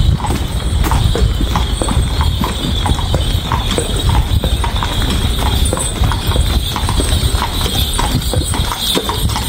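Hooves of a pair of large carriage horses clip-clopping in a steady run of strikes as a horse-drawn carriage passes.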